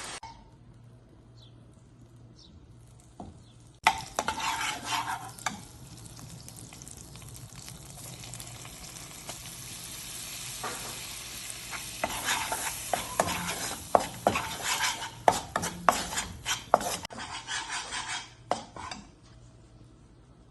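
A spoon stirring and scraping food around a pan as it sizzles. It starts suddenly about four seconds in, and near the end there is a run of sharp clinks of the spoon against the pan.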